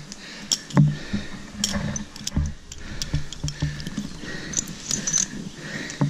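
Metal climbing hardware and rope being handled on a tree-climbing harness: irregular clicks and clinks of carabiners and a rope-climbing device, with dull knocks. A few brighter metallic jingles come near the end.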